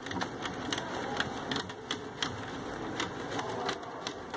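Sharp, irregular clicks and light rattling, about two or three a second, as steel caning needles and stiff rattan cane strands are worked through the half-woven cane of a chair back.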